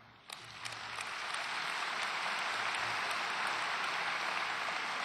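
Audience applauding, a dense steady clatter of many hands that starts just after the beginning, swells over the first second and then holds.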